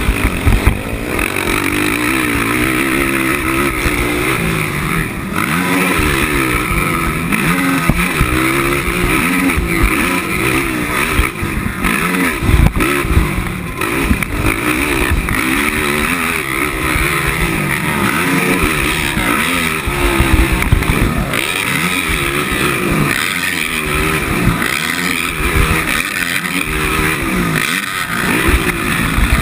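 A 450-class race quad's single-cylinder four-stroke engine running hard, heard close from the rider's helmet. Its pitch climbs and drops again and again as the throttle opens and closes and the gears change.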